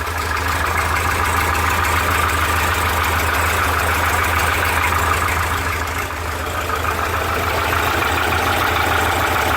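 Porsche 912's air-cooled flat-four engine running steadily at idle with a fast mechanical rattling knock, which the owner takes for piston slap. The engine sound dips briefly about six seconds in, then returns.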